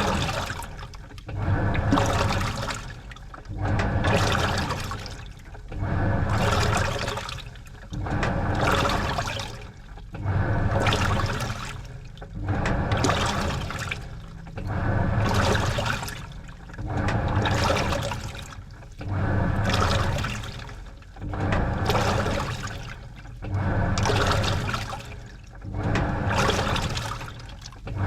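Washing machine agitating a load of clothes in water: the water sloshes and churns in regular surges about every two seconds, with short pauses between as the wash action reverses.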